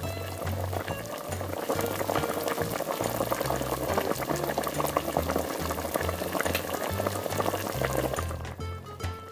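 A miniature pot of creamy clam chowder bubbling and crackling at a simmer, over background music with a plodding bass line. The bubbling thins out near the end.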